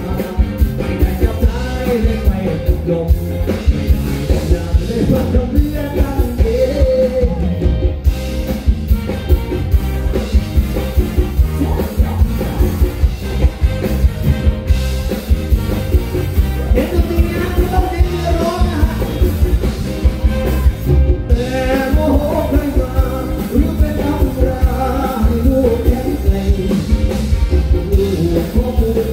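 Live band playing amplified through a PA: electric guitars, drums with a steady heavy beat, and a male singer singing into a microphone.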